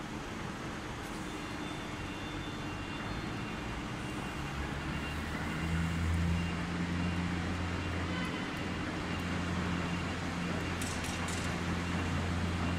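Steady machinery noise, with a low hum that sets in about five seconds in and holds, and a few faint clicks near the end.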